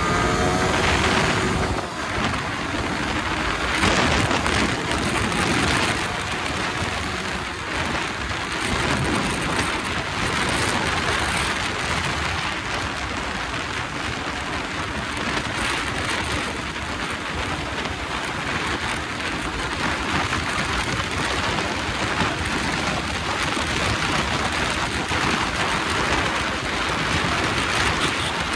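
Loud wind rush buffeting the microphone on a Yamaha R15 V3 motorcycle ridden at about 100 to 120 km/h. Its 155 cc single-cylinder engine is faint underneath and is heard climbing in pitch only about a second in.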